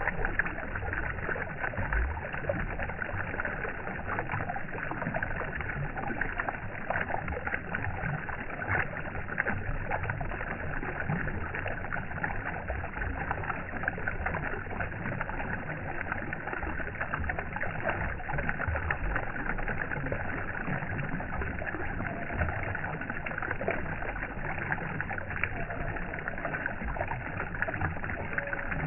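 Steady sound of moving water, an unbroken rush with many small irregular splashes and lapping ticks.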